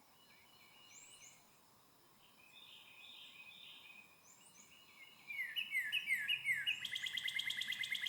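Wild songbirds singing. Soft chips and short phrases come first, then a louder song about five seconds in: a string of quick down-slurred whistles that runs into a fast, rattling trill.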